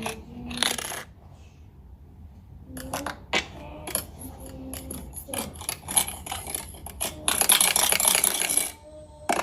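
Rapid clicking and clattering of small hard objects, with a dense rattle from about seven seconds in until near the end. Short pitched sounds come in between the clicks.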